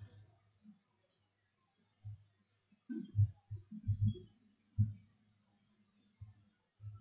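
Computer mouse clicks: four short clicks about a second and a half apart, with faint low thumps between them.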